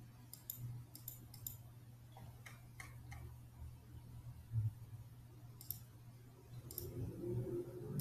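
Faint computer mouse clicks, a few sharp ticks in small clusters, over a low steady hum.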